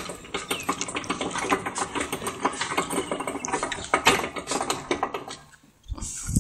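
A small engine running with a fast, even rattle, dying away about five and a half seconds in, followed by a couple of low thumps near the end.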